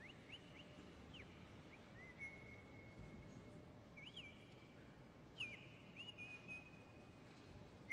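Faint, high whistled notes. Each one flicks quickly up or down in pitch, and several settle into a steady tone held for a second or more, over a quiet hall background.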